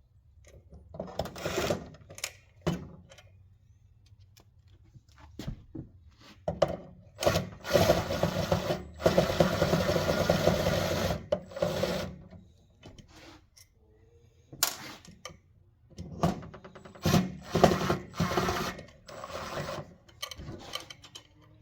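Taking apart a scrap marine radar unit: metal parts and tools knocking, clattering and scraping on the workbench. A power drill runs steadily for about four seconds in the middle.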